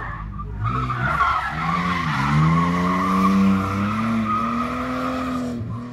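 Car driven hard through a cone slalom: the engine note dips briefly about two seconds in, then climbs steadily as it revs up, while the tyres squeal through the turns. The sound cuts off just before the end.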